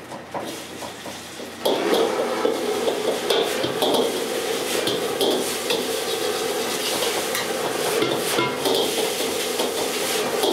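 Fried rice and egg sizzling in a wok while a metal ladle scrapes and knocks against the pan as it is stirred and pressed. The sound grows louder a little under two seconds in and stays busy, with frequent clanks of the ladle on the wok.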